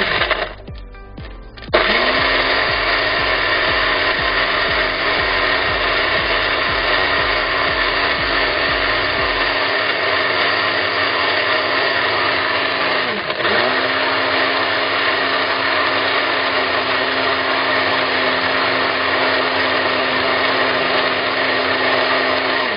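Personal bottle blender's motor puréeing carrot with milk: a short pulse at the start, then a steady whirring run from about two seconds in. Around the middle the motor dips and picks straight back up.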